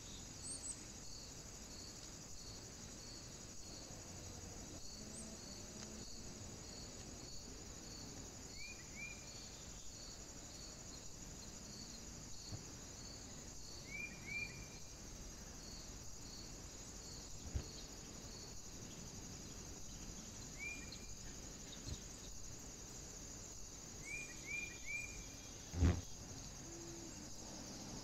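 Woodland ambience: a steady high hiss, a regular series of soft high ticks over the first dozen seconds, and short rising bird chirps in twos and threes. One sharp knock sounds near the end.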